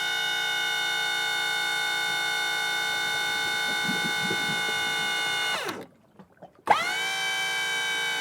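Hydraulic boat lift's electric pump motor whining steadily. About five and a half seconds in it winds down with falling pitch and stops. After under a second it restarts with a click and quickly climbs back to speed.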